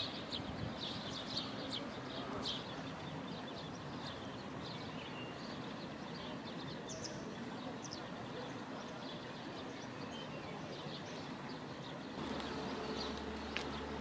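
Steady rush of a shallow river running over stones, with short high bird chirps scattered through it. About twelve seconds in, a steady low hum joins.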